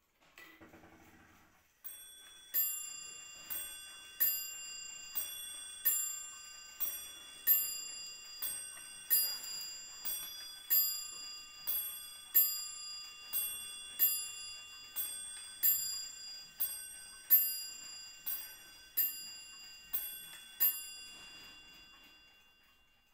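Dugena mantel clock striking the hour on a two-note ding-dong (bim-bam) strike, about two dozen notes alternating between two ringing tones at a little over one a second, which fits twelve o'clock. A brief whir of the strike mechanism comes just before the first note, and the last note rings away near the end.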